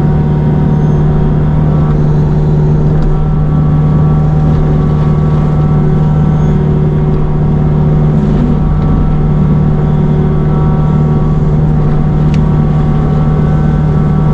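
Forestry mulcher machine running steadily: a constant drone from its engine and mulching head, with no change in pitch.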